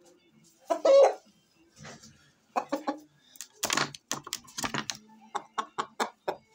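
Game rooster gives one loud, harsh squawk about a second in. This is followed by a run of short, sharp slaps, about three a second, as hands pat and rub the bird's body and feathers in a conditioning massage.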